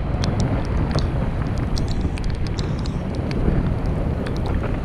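Wind buffeting a GoPro's microphone while riding a bicycle: a steady low rushing noise, with many small sharp ticks scattered throughout.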